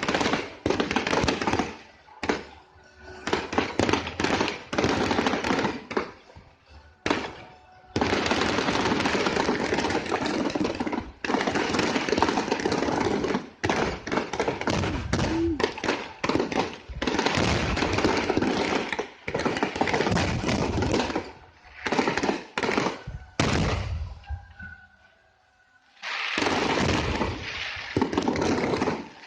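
Fireworks going off in rapid volleys of dense bangs and crackling, separated by short pauses, with a longer lull about three-quarters of the way through.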